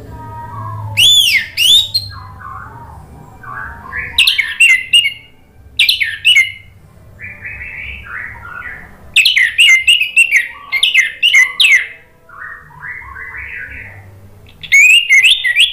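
Orange-headed thrush singing: loud, clear whistled phrases that sweep up and down, some broken into quick runs of repeated notes, alternating with softer, lower warbling in between.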